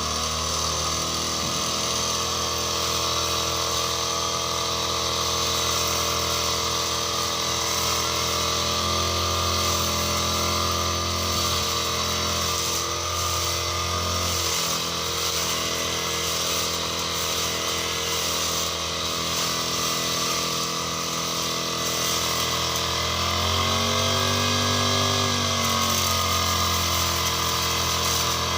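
Petrol brush cutter (grass-cutting machine) engine running steadily, its engine note changing briefly about three-quarters of the way through.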